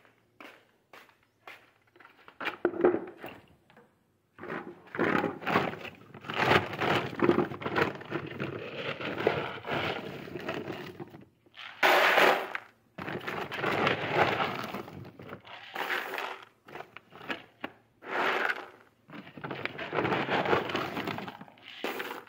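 Dry animal feed being scooped with a plastic bowl and poured from a sack into a plastic tub: several long spells of dense rattling and crackling, with a few light taps before the first pour.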